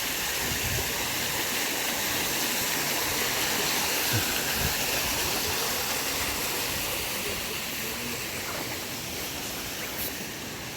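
Steady rushing of a mountain stream, growing a little fainter in the last few seconds.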